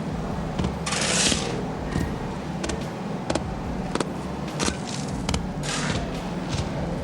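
Soil being backfilled into a pit and compacted with wooden tampers: dull knocks at a fairly even pace, about one and a half a second, with two longer scraping rushes of earth, one about a second in and one near the end.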